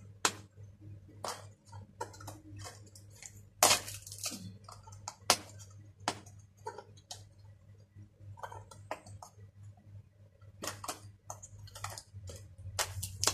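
Fingers and fingernails picking and scraping at the sealed edge of a cardboard product box that is hard to open: irregular small clicks and scratches, with a louder scrape about four seconds in and a sharp click a little after. A faint low hum runs underneath.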